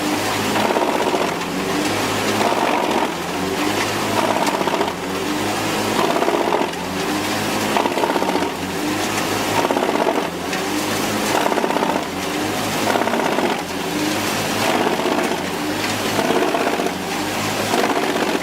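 Large industrial wood chipper running under load, a loud mechanical churning that pulses about once a second.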